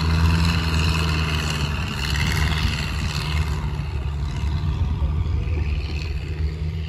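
Long-tail boat's engine running steadily as the boat speeds past on the river, a low drone that grows a little fainter after about two seconds.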